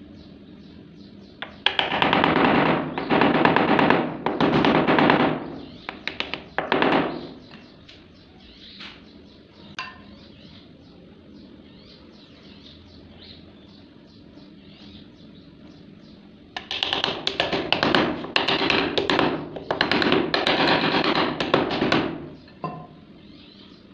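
Hands working molding sand around a brass valve pattern for a sand-casting mould, scraping and pressing it with a gritty rustle. It comes in two long bouts, one starting about two seconds in and the other at about seventeen seconds.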